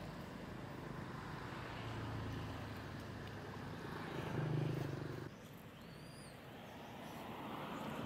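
A motor vehicle's engine running, a low steady hum that grows louder about four seconds in and then cuts off suddenly. A short high chirp follows about a second later.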